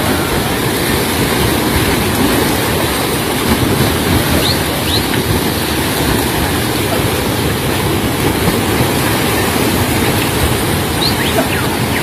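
River water rushing steadily over a weir and through the white water below a waterfall, a dense even noise with no breaks.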